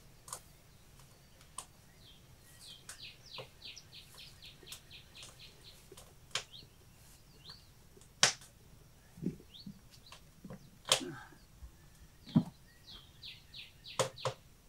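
Scattered sharp knocks and clinks from kitchen work during pickling, the loudest about eight, eleven and twelve seconds in. A small bird sings a quick run of repeated high chirps in the background, twice.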